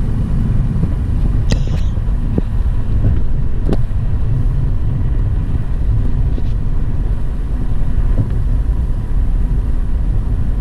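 Road noise inside a moving car's cabin: a steady low rumble of tyres and engine, with a few brief clicks in the first few seconds.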